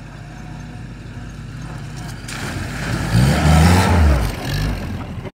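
WWII-style military jeep driving past on a dirt track: its engine grows louder as it approaches, rises in pitch as it comes close about three seconds in, then drops away, with tyres on loose dirt. The sound cuts off suddenly near the end.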